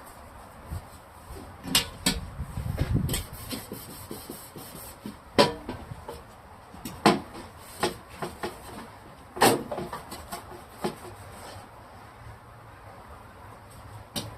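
Refrigerator parts being handled and scrubbed: a series of scattered knocks and clatters, with a short stretch of rubbing about two seconds in, then quieter near the end.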